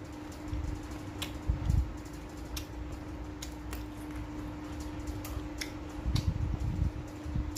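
Eating by hand: scattered small clicks and smacks of chewing and of fingers working shrimp and rice in a bowl, with a few low bumps near 2 s and 6 s, over a steady hum.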